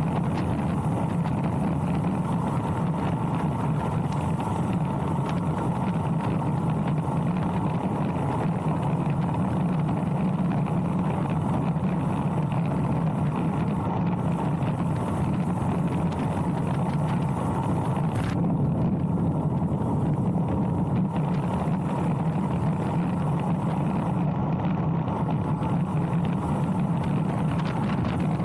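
Steady rush of wind buffeting the microphone, with the rolling hum of a road bicycle descending at speed on asphalt.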